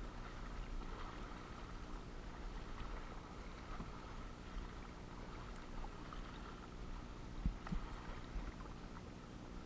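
Kayak paddling on choppy water: the paddle blades dipping and splashing, and water lapping against the plastic hull, over a low wind rumble on the microphone. A couple of short knocks about three quarters of the way through.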